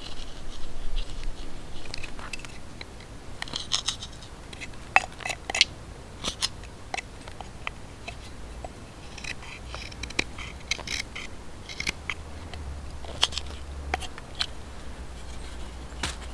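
Knife blade carving shavings off a peeled wooden stick: short scraping cuts and clicks at irregular intervals, some in quick little clusters.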